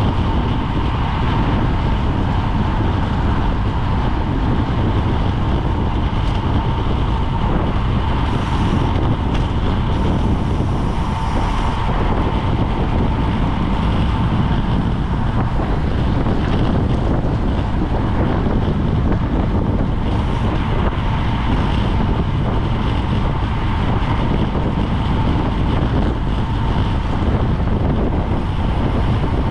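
Wind rushing over a GoPro's microphone as a bicycle is ridden at race speed, a steady heavy rumble with a thin steady whine underneath.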